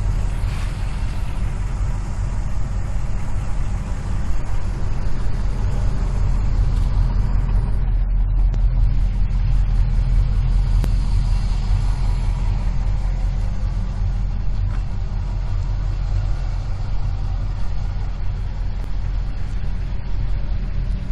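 1976 Pontiac Firebird Formula's 400 V8 idling with a steady, even low rumble.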